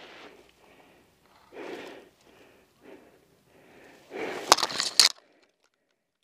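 Soft rustling of clothing and dry grass with breathing close to the microphone, in short irregular pulses. About four and a half seconds in comes a louder scrape with two sharp clicks, and the sound cuts out just after five seconds.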